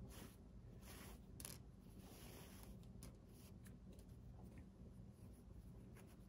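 Faint rustling of a fabric strip being pulled through and wrapped around piping cord, in several short strokes.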